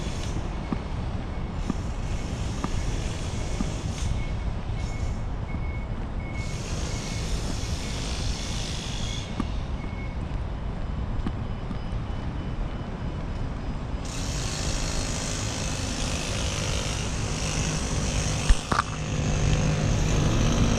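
Outdoor street ambience: a steady low rumble of wind and distant traffic, with a faint repeated beeping in the first half and a rising hiss of passing vehicles in the second half. A single sharp knock comes near the end.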